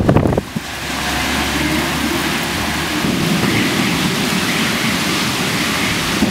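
Heavy rain falling in a thunderstorm, a steady hiss, with a brief loud burst at the very start and a low rumble underneath for the first couple of seconds.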